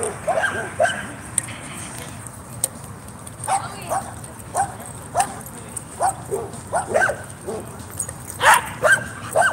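A dog barking over and over, about one to two barks a second, pausing for about two seconds after the first few; the loudest barks come near the end.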